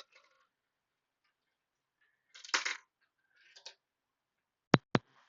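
Marbles clicking and clattering on a marble run in short separate bursts, with two sharp loud clicks close together near the end.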